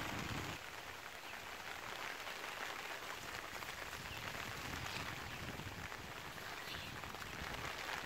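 Steady rain falling on a waterlogged field of leafy plants and puddles, an even hiss with no distinct events.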